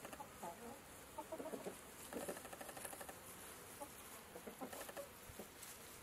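Chickens clucking softly, a string of short, faint calls scattered through, with a cluster of them about one to two and a half seconds in.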